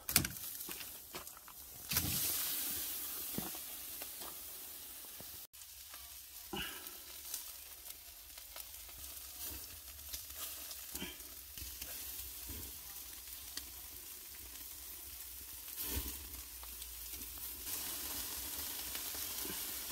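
Chicken and sausages sizzling over glowing charcoal on a grill while a mustard, oil and ketchup sauce is brushed onto the chicken, with scattered clicks and knocks. The sizzle is loudest just after two seconds in.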